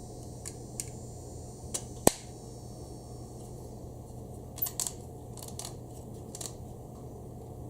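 Scattered clicks and knocks of a GoPro clamp mount being handled, the sharpest about two seconds in, over a steady low hum.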